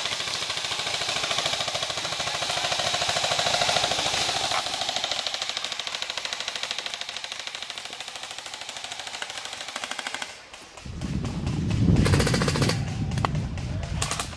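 Airsoft electric gun firing one long, unbroken, rapid automatic burst that stops abruptly about ten seconds in. A loud low rumble follows, with a few scattered shots near the end.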